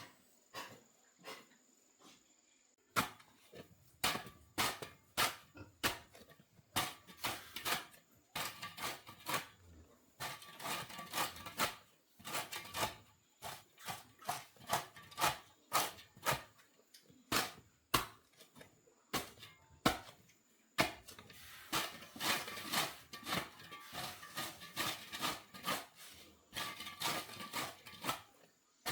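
A rapid, irregular series of sharp knocks or taps, a few at first and then about two to three a second, some with a faint ring after them.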